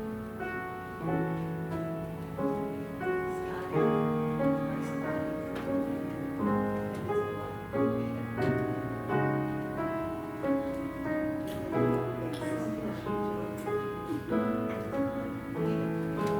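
Instrumental music played on a keyboard: slow, sustained chords that change about once a second, with no singing.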